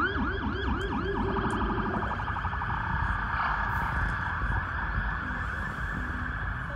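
Emergency vehicle siren in a yelp, about four sweeps a second, switching to a faster warble about a second in, then giving way to a steady noisy wash.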